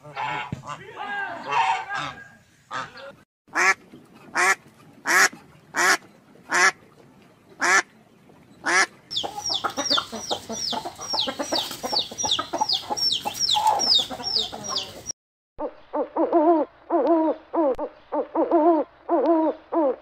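Calls of several different birds in quick succession, cut one after another: short honking calls about one every half second, then a fast run of high falling chirps, then a run of lower rhythmic calls.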